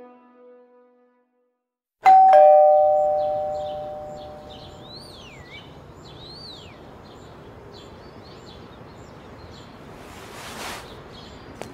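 Two-tone "ding-dong" doorbell chime about two seconds in: a higher note, then a lower one, ringing out and fading over a couple of seconds.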